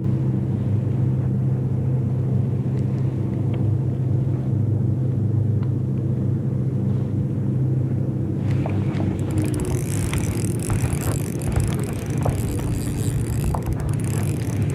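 Boat motor running steadily with a low hum. About eight seconds in, a rushing hiss joins it.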